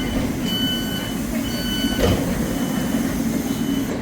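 Passenger train's door-closing warning beeps, a run of repeated high beeps that turn fainter after about two seconds, over the steady rumble of the train, with a single thump about two seconds in.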